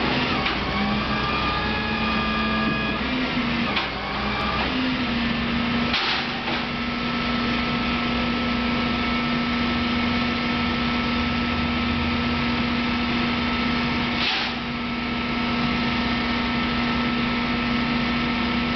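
Flatbed rollback tow truck running while it lowers a pickup down its tilted deck: a steady mechanical hum with a whining tone, whose pitch shifts a few times in the first four seconds and then holds steady. Two brief hisses come about six and fourteen seconds in.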